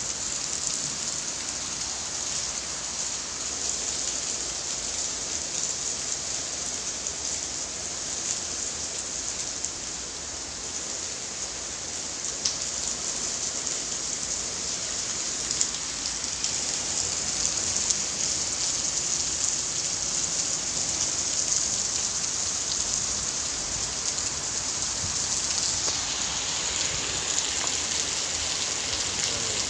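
Rain falling steadily: an even hiss with a few sharper drop ticks, getting a little louder and brighter in the last few seconds.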